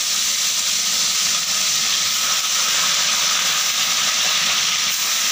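Whole bata fish frying in hot oil in a kadai: a steady sizzle.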